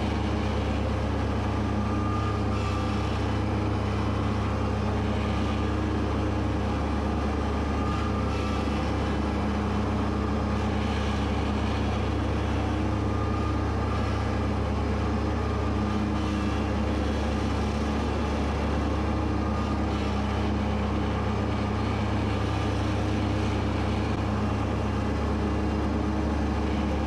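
Kubota B2601 compact tractor's three-cylinder diesel engine running at a steady speed, with the mower deck engaged cutting tall wet grass. A steady low drone that swells slightly every few seconds.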